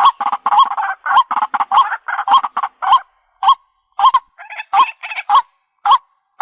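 White-breasted waterhen calling: short croaking notes repeated over and over, about three a second at first and more spaced out after about three seconds.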